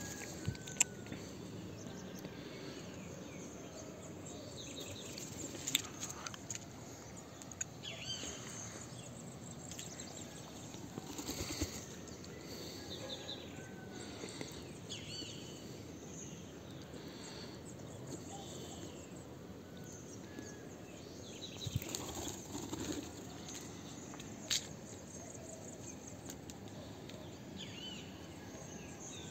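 Faint outdoor background noise with scattered short bird chirps and a few sharp clicks.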